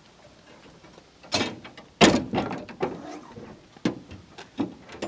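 A heavy timber-clad door being pushed shut, with a loud thud about two seconds in. Several sharper metal clunks and knocks follow as the latches at its base are fastened.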